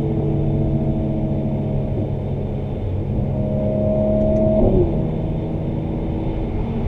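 Mercedes-AMG C43's twin-turbo V6 with performance exhaust pulling under load, its note climbing slowly, then dropping sharply about two-thirds of the way through and settling into a steady lower drone.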